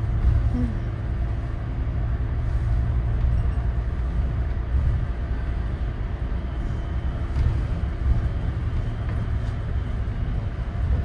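Scania N94UD Omnidekka double-decker bus under way, heard from the upper deck: a steady low engine and road rumble.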